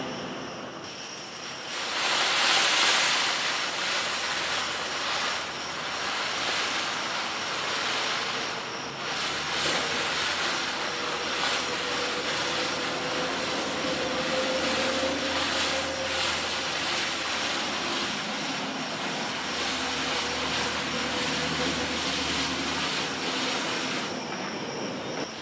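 Ground fireworks fountains spraying sparks with a steady rushing hiss. One fountain dies away at the start and the next lights about two seconds in and hisses on, with scattered crackles through the middle.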